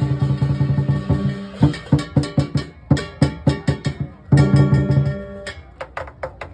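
Lion dance percussion: a large Chinese drum beaten with crashing hand cymbals and a gong. A fast, steady beat breaks up after about a second and a half into separate, spaced strikes, stops briefly about four seconds in, then resumes, with ringing cymbal and gong strikes near the end.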